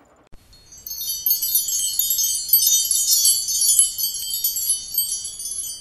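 Bright, high-pitched chimes: many small ringing notes tinkle together in a shimmering cascade. They start about a second in and ease off a little toward the end.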